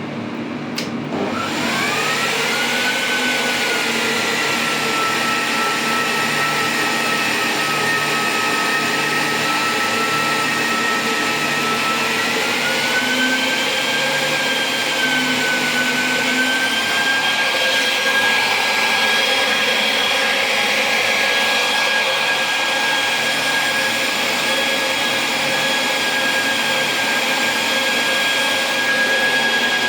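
The device under test switches on with a click. An electric motor, such as a cooling fan or blower, spins up with a quickly rising whine, then runs steadily with a rushing air noise. Its pitch steps up slightly twice partway through.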